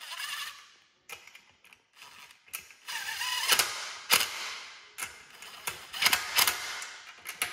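Cordless power driver with a socket running bolts down into a Honda D16 engine block in several short bursts, with sharp clicks among them.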